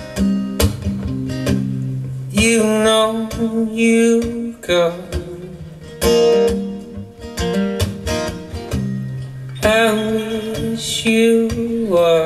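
Live recording of a man singing over strummed acoustic guitar, played back over hi-fi loudspeakers in a listening room. Guitar strums open it, and long sung lines come in about two seconds in and again near the end.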